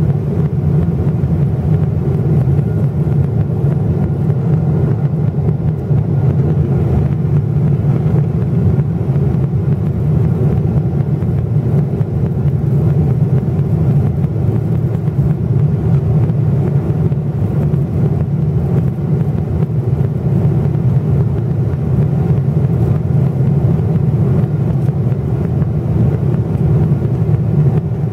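Steady low cabin noise inside a Boeing 777-300ER climbing near 29,000 feet: its GE90-115B turbofans at climb power blended with air rushing past the fuselage.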